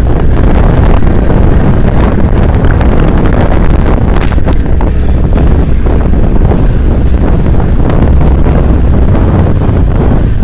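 Loud, steady low rumble with wind buffeting the microphone.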